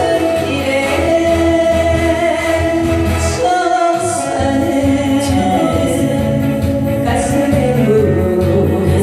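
A woman singing a Korean song, holding long notes over steady instrumental accompaniment.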